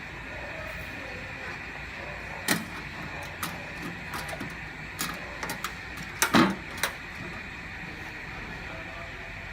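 A handful of sharp clicks and knocks, with the loudest cluster a little past the middle: tools and the steel tool case being handled. A steady background hum lies underneath.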